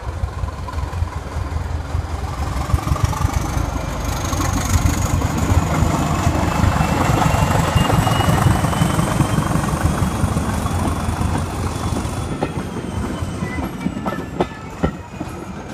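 Class 205 diesel-electric multiple unit pulling away and passing at close range, its English Electric four-cylinder diesel engine running under power with a whine that rises as the train gathers speed. It is loudest as the power car goes by, the whine dips as the train moves away, and wheel clicks over the rail joints come near the end.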